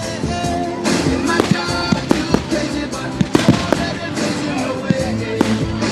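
Fireworks going off with repeated sharp bangs and cracks over loud music.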